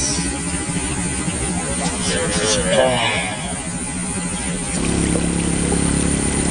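Motorcycle engines running in a steady low hum, with a louder, different engine note taking over about five seconds in. A brief wavering sound about two and a half seconds in.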